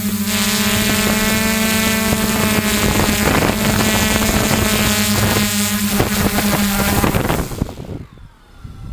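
Hexacopter's six electric motors and propellers (DJI E310 propulsion) running with a steady low hum and a higher whine as it flies low and sets down. About three-quarters of the way through, the motors cut out and spin down with a faint falling whine.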